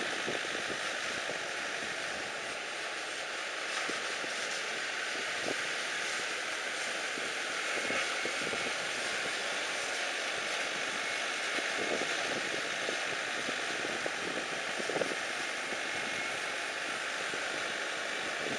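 Steady rushing road and wind noise of a vehicle driving along a lane, with a few faint knocks.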